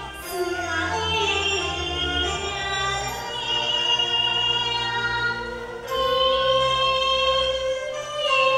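Teochew opera music: a slow sung passage over a traditional Chinese instrumental ensemble, with long held notes that waver slightly in pitch.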